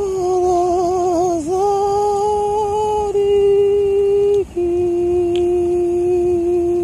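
A person humming two long held notes close to the microphone: the first wavers and dips a little before steadying, then after a brief break about two-thirds of the way through, a slightly lower note is held steadily.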